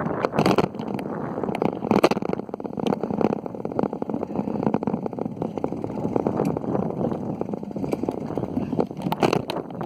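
Steady rushing noise of riding a bicycle with a phone held in the hand: wind buffeting the microphone along with riding noise. There are a few sharp knocks about half a second in, at about two seconds, and near the end.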